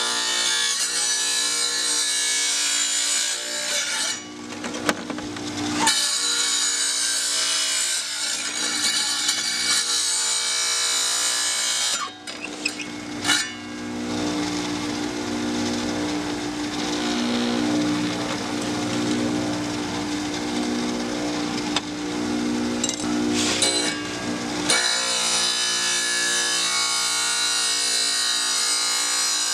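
Wet tile saw's motor running while its diamond blade grinds through a glass beer bottle turned against it: a harsh grinding hiss over a steady motor hum. The grinding breaks off briefly a couple of times as the bottle is eased off the blade.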